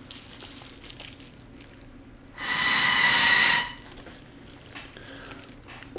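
A single breathy rush of air, a little over a second long, with a hollow pitched ring from air blown through a small motorized-bicycle muffler tube; the rest is faint rustling near silence.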